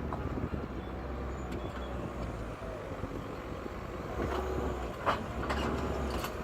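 Diesel engine of paving site machinery running steadily, with scattered short knocks and a louder sharp clack about five seconds in.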